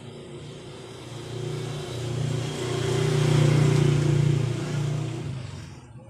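A motor vehicle engine passing by: it grows louder over about two seconds, peaks in the middle, and fades away near the end.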